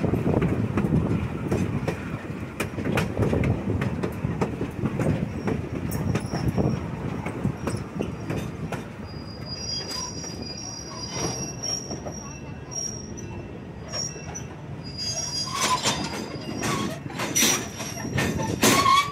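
Railroad cars rolling along the track, heard from an open gondola car: a steady rumble with scattered clicks from the rails. From about ten seconds in, high-pitched wheel squeal sets in, and it comes loudest in repeated bursts near the end.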